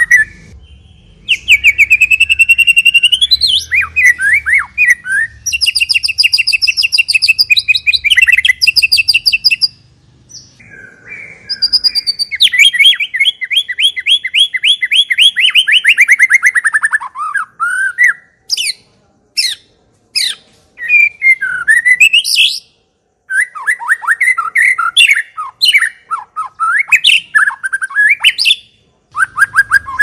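White-rumped shama singing a long, varied song of fast rattling trills, sweeping whistles and short chattering phrases, separated by brief pauses.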